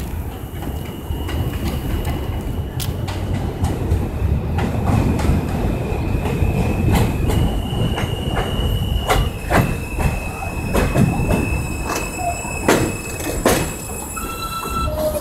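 New York City Subway G train pulling into the station and braking: a steady low rumble with sharp clacks over the rail joints and a high squeal held for several seconds at a time. Near the end, as it comes to a stop, a lower whine joins in.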